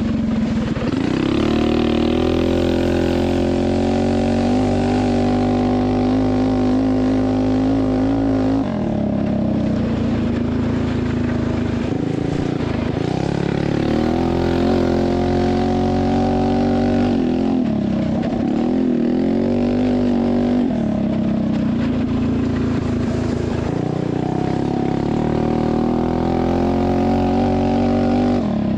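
A Coleman CT200U-EX mini bike's tuned Tillotson 212 single-cylinder engine is run hard around a lap. Its pitch climbs and holds on the straights, then drops sharply as the throttle comes off for a corner, about five times.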